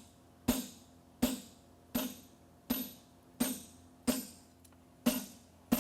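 Hammer blows on a blacksmith's fuller held against a hot steel horseshoe bar on an anvil. There are about eight ringing metallic strikes at an even pace, roughly one every three-quarters of a second. This is the rhythm of fullering the nail crease of a horseshoe.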